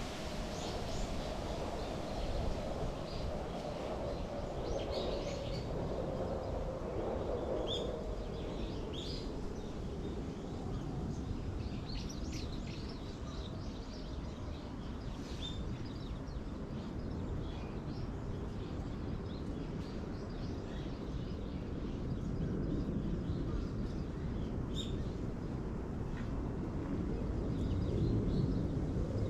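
Outdoor ambience: a steady low rumble of background noise with short, high bird chirps scattered throughout.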